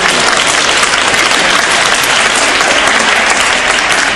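Loud, steady audience applause at the end of a figure-skating pairs program.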